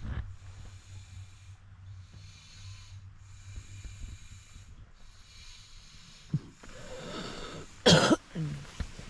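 A person coughs once, loudly, near the end, with a short low vocal sound just after, over a low steady hum.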